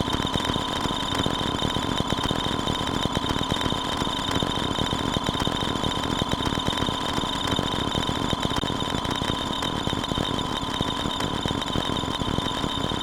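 A steady, unchanging alarm-like squeal: fixed high tones over a harsh, rough noise.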